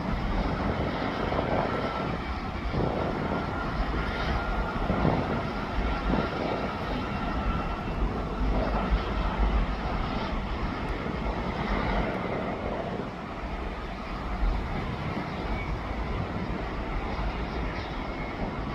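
Heavy diesel earthmovers running and moving on a construction site: a steady, continuous engine rumble with a strong, uneven low end.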